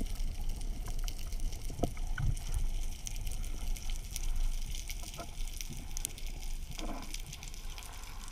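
Underwater sound through a GoPro's waterproof housing during a freedive: a steady low rumble with many small scattered clicks and crackles, and a brief rush of noise about seven seconds in.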